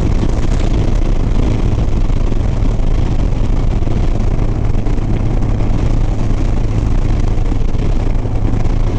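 Harley-Davidson Sport Glide's V-twin engine running steadily at highway cruising speed, with a constant low hum under wind and road noise.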